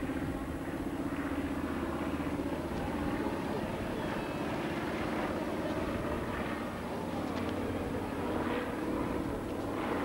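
Consolidated PBY Catalina flying boat in flight overhead, its twin radial piston engines and propellers giving a steady drone.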